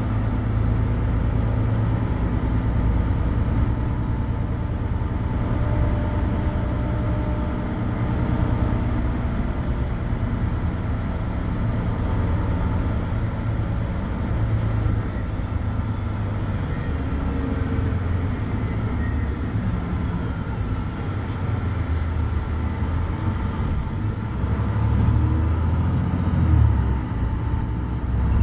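Mercedes-Benz Citaro C2 city bus's OM 936 h six-cylinder diesel idling steadily with the bus standing still. A deep, even hum, with a brief swell in the rumble near the end.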